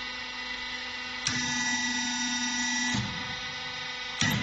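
Hydraulic sheet-metal bending machine running with a steady electric hum. About a second in, a click starts a louder whine that holds for about a second and a half while the sheet is bent, then drops back to the hum. A sharp clunk comes near the end.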